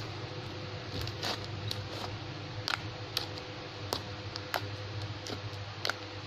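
Clicky slime being squeezed and poked by hand, giving irregular sharp clicks and pops, about two a second.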